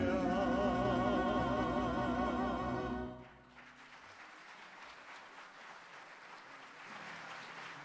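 The final note of a song: a male singer holds a long note with vibrato over a large tamburica orchestra, and they cut off together about three seconds in. Audience applause follows, swelling slightly near the end.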